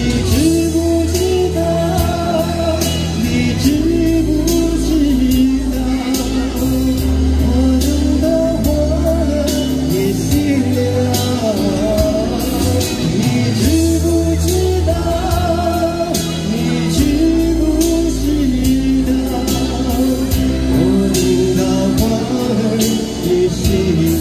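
A man singing a slow pop ballad into a microphone over a backing track with bass and a steady beat.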